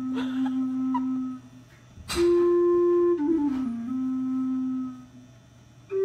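A long wooden flute played slowly in a low register. It holds a low note, pauses, then starts a new phrase on a higher note about two seconds in and steps down to another long held low note that fades out near the end.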